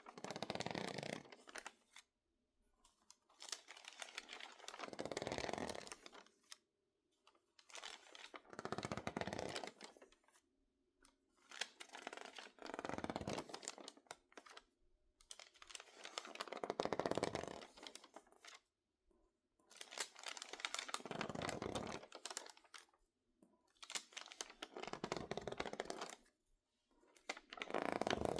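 Stiff, water-crinkled magazine pages being handled close up: bursts of dense crinkling and crackling, each about two seconds long and about every four seconds, with short quiet gaps between.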